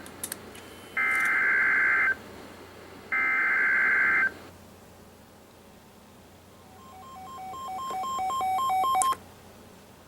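NOAA Weather Radio SAME alert header: harsh, buzzy digital data bursts about a second long, two of them a second apart, announcing an incoming warning. Then a weather radio receiver's alert beeps on two alternating pitches, growing louder for a couple of seconds before cutting off abruptly.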